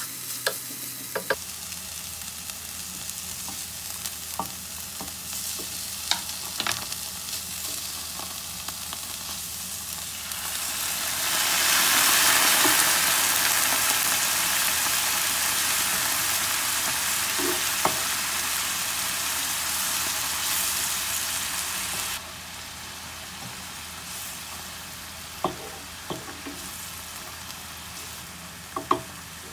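Diced onion frying and sizzling in a nonstick pan, a wooden spatula stirring and scraping with scattered sharp taps. About ten seconds in, liquid goes into the hot pan and the sizzle grows loud, then drops suddenly some ten seconds later to a quieter bubbling sizzle as the sauce boils down.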